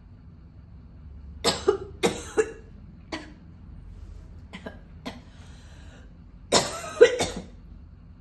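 A woman's hard smoker's cough: a quick run of four coughs about a second and a half in, a few single coughs, then the loudest burst of coughing near the end.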